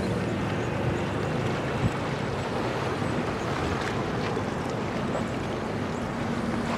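Low engine hum of a bulk carrier and its escorting tug under way, over wind on the microphone and the wash of water. A brief thump about two seconds in.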